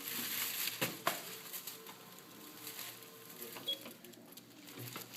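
Light handling noises: two sharp clicks about a second in, then faint scattered rustles and taps.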